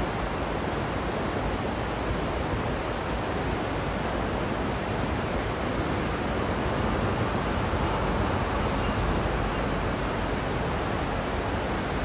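River water rushing steadily over rocks, an even, unbroken rush.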